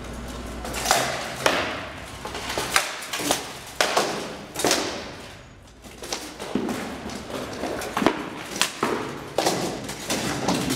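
Rattan swords striking shields and armour in SCA heavy armoured combat: an irregular series of sharp cracks and thuds, each echoing in a large hall, with a short lull near the middle.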